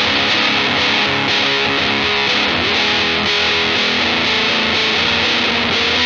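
Electric guitar played through a Death By Audio Apocalypse fuzz pedal set to its War Fuzz mode: a heavily distorted, fuzzy tone with held, ringing notes that change pitch as the playing goes on.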